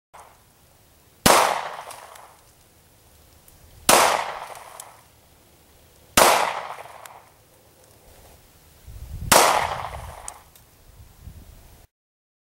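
Four gunshots, a few seconds apart, each trailing off over about a second.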